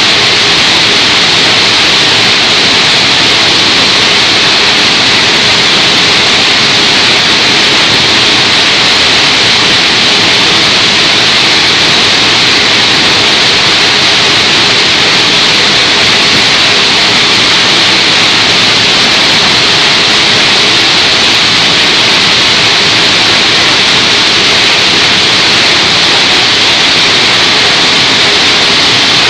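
Y81-series hydraulic metal baler running, its motor and hydraulic pump making a steady, loud hiss with a faint hum underneath.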